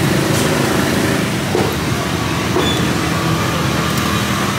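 A motor vehicle engine running steadily close by, over a steady background of street noise.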